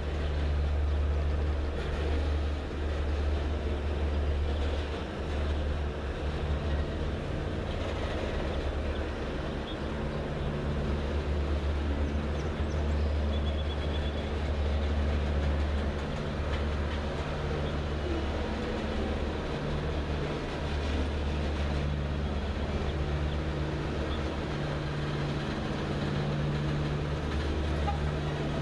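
Loaded freight cars (refrigerated boxcars and tank cars) of a heavy Norfolk Southern freight train rolling past: steady wheel-on-rail noise with a low rumble that swells and dips every few seconds.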